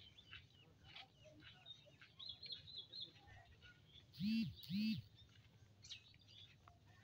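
Small birds chirping faintly and intermittently. About four seconds in come two loud, short, low calls, each rising and then falling in pitch.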